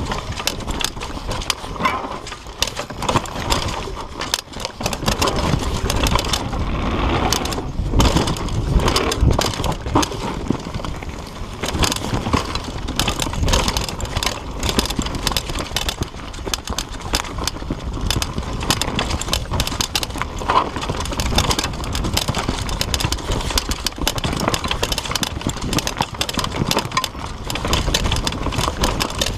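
Mountain bike riding fast down a dirt forest trail: tyres running over dirt and roots, with a constant clatter of the bike rattling over bumps and a low rumble.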